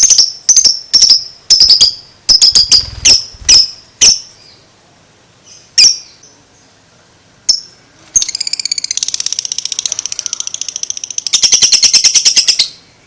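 Lovebird calling: sharp single shrieks about twice a second, a couple more spaced out, then about eight seconds in a long rapid chattering trill, the 'ngekek', that gets louder near the end and lasts some four seconds.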